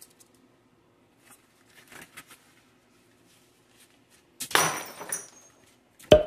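Rubber-coated work gloves being handled on a wooden tabletop: faint rustling, then a loud brushing scrape of glove material a little past the middle, and a single sharp knock against the table at the very end.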